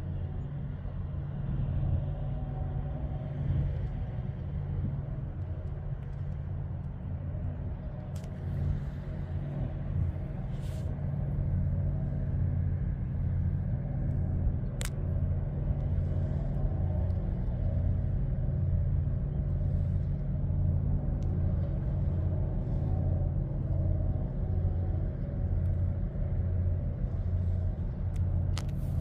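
Deep, steady engine rumble of a large container ship, with a slow rhythmic throb a little more than once a second. A few brief sharp clicks sound over it.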